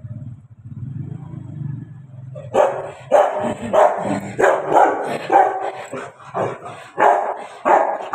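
A Rottweiler barking repeatedly, a run of loud barks about two a second that starts some two and a half seconds in. Before the barking there is a low rumble.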